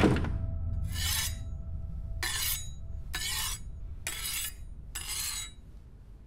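Kitchen knife being sharpened: five strokes of the blade, about one a second, over a low steady drone. A sharp thud right at the start.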